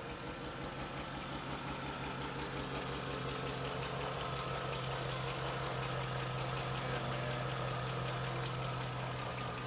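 LS-swapped V8 in a 1963 Chevrolet Impala idling steadily, with an extra steady whining noise from the power steering pump. The noise is not lifter tap.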